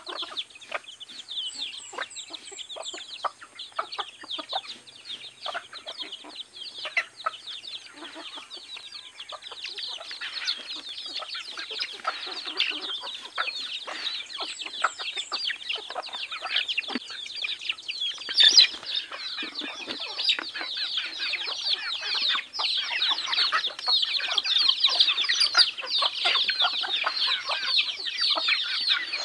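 Flock of native chickens feeding: constant high-pitched peeping of many chicks mixed with hens clucking, the calls growing busier and louder about a third of the way in. One sharp, louder sound stands out a little past the middle.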